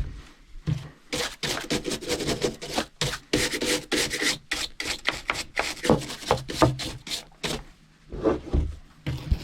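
Rapid back-and-forth scrubbing strokes, sawdust being rubbed or brushed off a chainsaw. The scrubbing stops near the end, and a few dull knocks follow.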